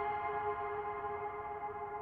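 Background music: a held, ringing chord of several steady tones that slowly fades.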